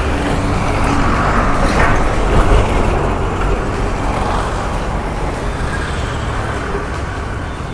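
Road traffic noise: a steady din of passing vehicles' engines and tyres, loudest in the first few seconds and then easing slowly.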